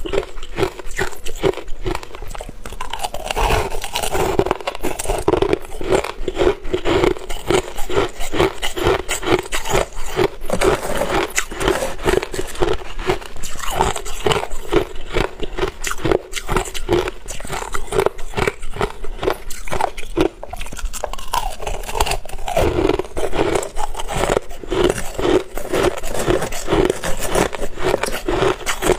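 Close-up crunching of crushed ice being chewed, a dense crackle of breaking ice with about two to three crunches a second. A metal spoon scrapes through the ice in the bowl as the next spoonful is scooped.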